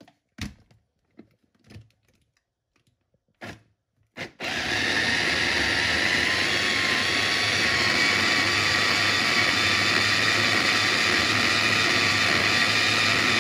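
A few light knocks as the chopper bowl and motor top are set in place, then, about four seconds in, an electric mini food chopper starts and runs steadily, its blade grinding fresh coriander and mint with tomato and chillies into chutney.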